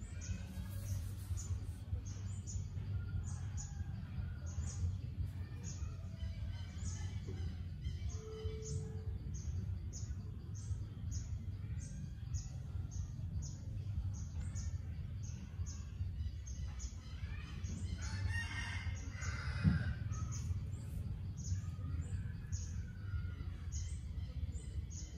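Outdoor ambience: a rooster crows once about eighteen seconds in, over a steady low rumble and a short high chirp repeating about one and a half times a second.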